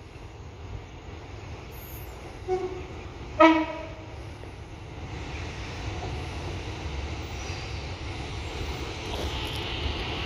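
Class 150 diesel multiple unit sounding its two-tone horn on the approach: a short higher note, then a louder, lower note about a second later. The rumble of the train's engines and wheels then grows steadily louder as it runs in alongside.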